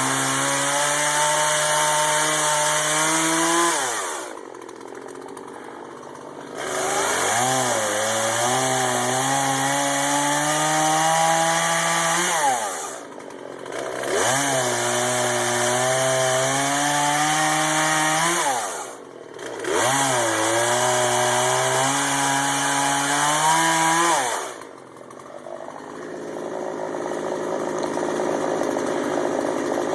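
Two-stroke gasoline chainsaw held at full throttle in four long bursts of several seconds each. Its pitch climbs slowly through each burst, then drops sharply back to idle between them, as when cutting wood. Near the end it settles to a lower, quieter running.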